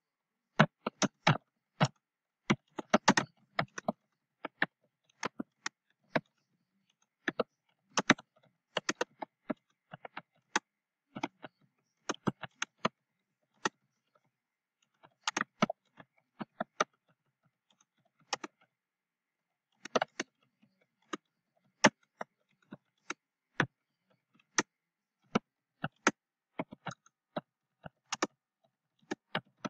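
Typing on a computer keyboard: quick irregular runs of key clicks broken by short pauses.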